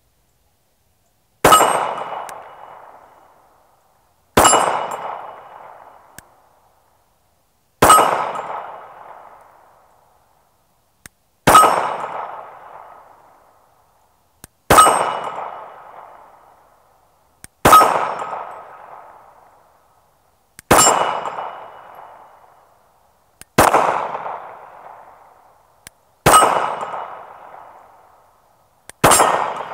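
Ten slow, evenly paced shots from a Glock 48 9mm pistol, about one every three seconds, each followed by the ringing of the steel gong it hits, fading out before the next shot.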